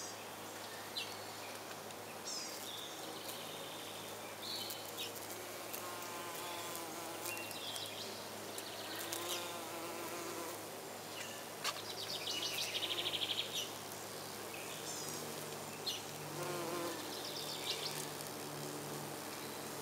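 Flying insects buzzing around flowers in a low hum that comes and goes, with scattered short high chirps. About twelve seconds in, a fast run of high pulses lasts a second or so and is the loudest sound.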